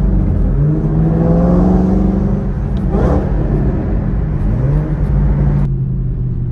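Car engine accelerating, its pitch rising in two pulls, about half a second in and again past the middle; the brighter upper part of the sound drops away suddenly near the end.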